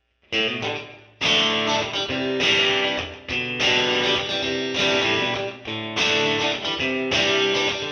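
Background music: strummed guitar chords in a steady rhythm, starting about a third of a second in out of dead silence.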